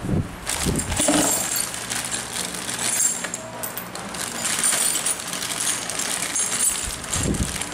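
Small metal bolts clinking lightly on a tile floor as hands handle the pole pruner's mounting hardware, with the crinkle of a plastic parts bag and a few low handling thuds.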